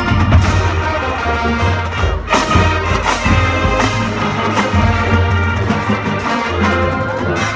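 Marching band playing: sustained brass chords over heavy bass, with drums and front-ensemble mallet percussion, and a few sharp hits two to three and a half seconds in.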